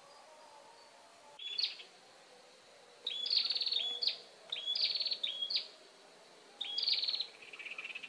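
A small songbird singing, starting about a second and a half in and then repeating the same short phrase several times: a high note broken by a fast trill, then a quick dropping note.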